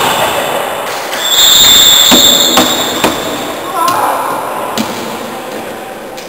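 Floorball play echoing in a sports hall: a high, steady squeal for about a second, then several sharp clacks of sticks and ball on the hard floor, with players' voices.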